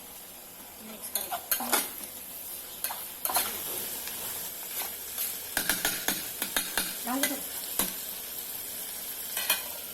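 Chicken sizzling as it fries in a hot pan, with a spoon stirring it and scraping and clinking against the pan in irregular spurts, busiest a little past the middle.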